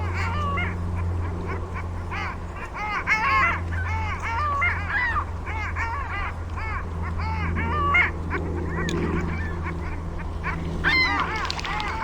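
A flock of waterfowl calling: many short, overlapping honking calls, with a steady low hum underneath.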